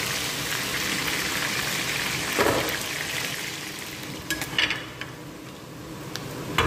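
Chicken wings frying in hot oil in a wok, a steady sizzle with a brief louder swell about two and a half seconds in, easing off in the second half. A few short clicks sound past the middle.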